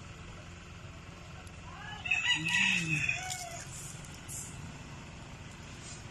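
A rooster crowing once, about two seconds in, for about a second and a half.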